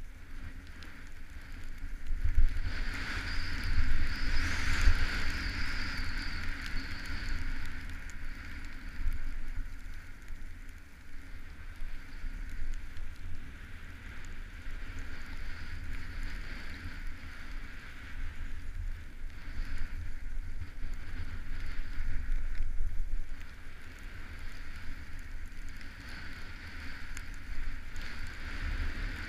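Skis sliding downhill over snow with a steady hiss, while wind rumbles against the camera microphone, loudest a couple of seconds in.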